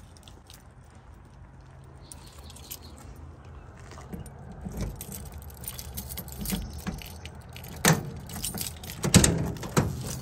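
Bunch of keys jangling and clicking, with scattered knocks that grow louder toward the end.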